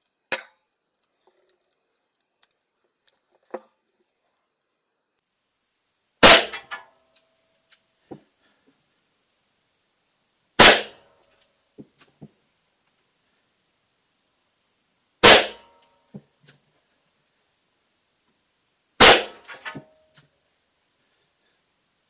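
A .38 S&W revolver fired one-handed four times, about four seconds apart, with 200-grain full-house home loads at just under 600 feet per second. Each shot leaves a short echo in the indoor range. A sharp click comes near the start as the revolver is handled, and faint clicks fall between the shots.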